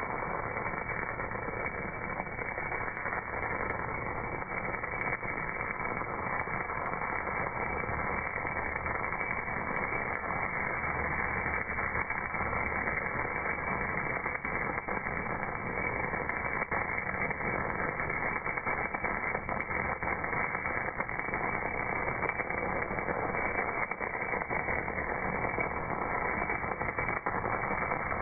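MAG welding arc on a cast part, with a steady, muffled crackling hiss and faint spatter clicks.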